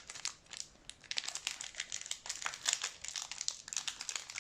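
Foil trading-card pack being crinkled and torn open by hand, a dense run of crackling and crinkling. The pack is tightly sealed and hard to get into.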